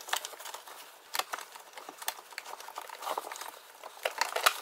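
Light, irregular clicks, taps and rustling of a truck door wiring harness and its plastic door jamb connector being handled and fed back into the door jamb, with a sharper tap near the end.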